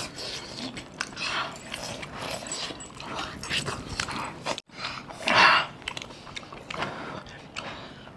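Close-up chewing, slurping and lip-smacking of people eating saucy chicken curry with their hands, in irregular wet bursts, the loudest a little past halfway.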